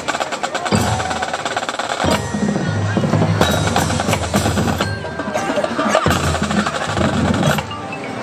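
Marching band playing in a field show: low brass holds chords that break off and restart every second or two, over rapid drum strokes from the drumline, loudest in the first two seconds.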